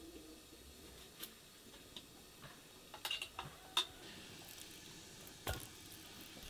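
Hands handling marinated lamb pieces in an enamel bowl: faint handling sounds broken by scattered sharp clicks and knocks, a cluster about three seconds in, the loudest just before four seconds and another near five and a half seconds.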